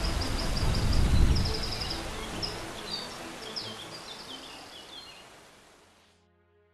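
Steady rushing of a river or falls, with a small bird's high chirps and trills over it; the whole scene fades out near the end.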